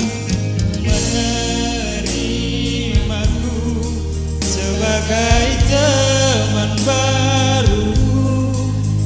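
A love song played through a PA system: keyboard-band accompaniment with a steady bass and a man singing the melody into a microphone.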